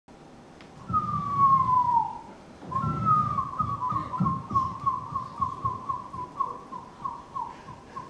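A man imitating a seagull's call with his voice into a microphone: one long falling cry, then a quick series of short falling notes, about three a second.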